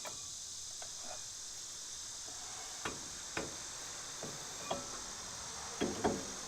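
Steady high chirring of crickets, with a few short metallic clicks and taps scattered through, the last ones near the end the loudest.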